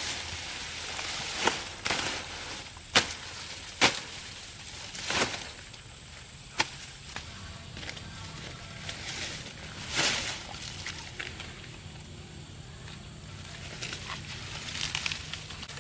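Irregular sharp knocks or snaps, about six of them spread unevenly, the loudest two close together a few seconds in, over faint outdoor rustling. A faint low hum comes in during the second half.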